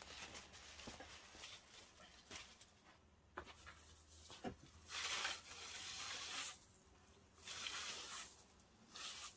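Scattered light clicks and knocks, then three bursts of rustling about five, seven and a half and nine seconds in, the first lasting about a second and a half.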